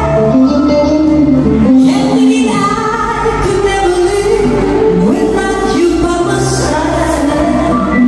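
A woman singing a pop song over live band accompaniment, holding long wavering notes above a steady bass.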